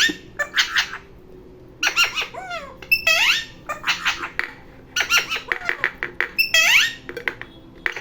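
Green parrot calling in bursts of rapid, high-pitched calls, many sliding down in pitch, with short pauses between the bursts.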